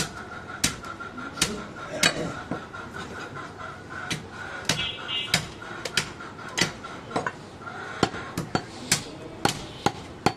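Butcher's knife chopping goat meat down onto a wooden log chopping block: sharp, irregular knocks about one or two a second, coming closer together near the end.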